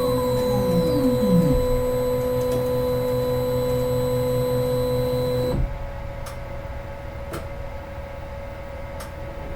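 MRI scanner sound: a loud, steady electronic hum of several pure tones, with a falling sweep in the first second and a half. About five and a half seconds in it cuts abruptly to a quieter hum on a different tone, with three faint clicks.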